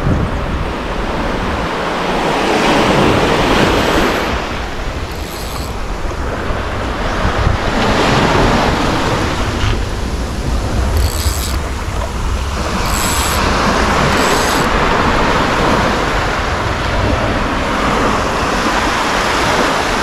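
Small surf waves washing up a sandy beach, swelling and easing off every few seconds, with wind rumbling on the microphone.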